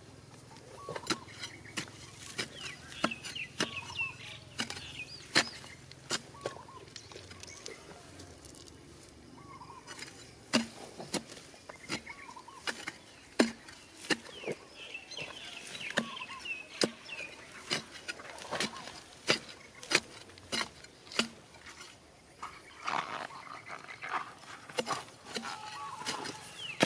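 An iron digging bar struck repeatedly into stony soil: sharp, irregular strikes, often about one a second, denser near the end. Chickens clucking in the background.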